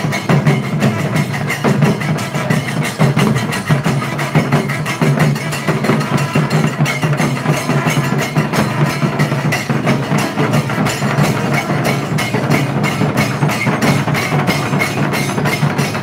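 Drums beaten in a fast, continuous rhythm, with a steady low drone underneath.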